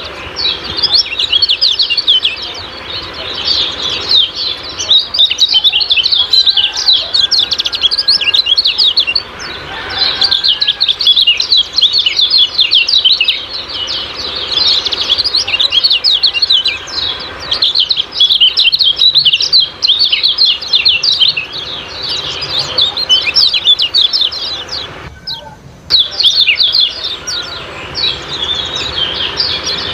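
Kecial kuning songbird calling its rapid 'ciak ciak' chatter: a dense, unbroken stream of short, high, down-slurred chirps, pausing briefly once near the end.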